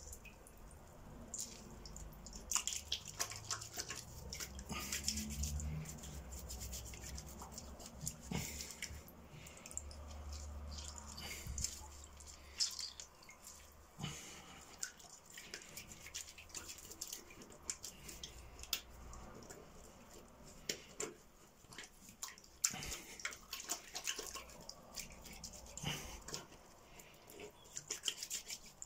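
Wet hands rubbing together with crushed dock leaves over a sink, with irregular small splashes and drips of water. A low hum runs underneath for roughly the first dozen seconds.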